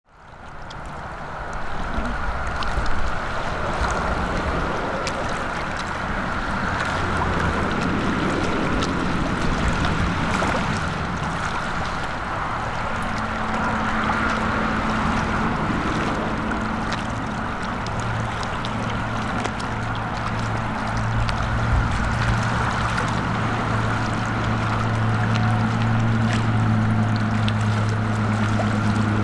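Single-engine turboprop of a DHC-3 Turbo Otter floatplane on approach, a steady engine and propeller drone with a constant high whine. A low propeller hum comes in about halfway through and grows stronger as the plane passes low over the water.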